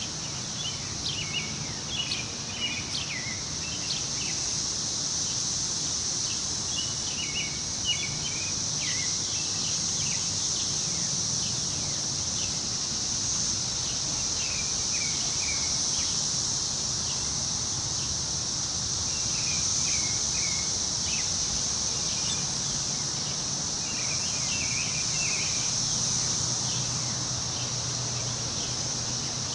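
Woodland ambience: a steady, high-pitched insect drone, with birds chirping in short repeated bursts and a soft rush of wind through the trees underneath.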